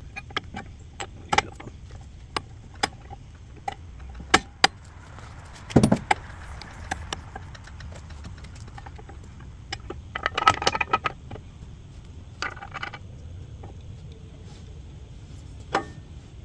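Loose steel parts of a hydraulic thumb being fitted to a mini excavator's stick, clinking and clanking: scattered sharp metal clicks, a heavier clunk about six seconds in, and short runs of ringing metal clinks around ten and twelve seconds in.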